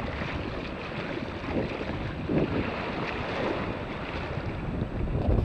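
Wind buffeting the microphone, with a strong gust near the end, over the wash of small waves in the shallows.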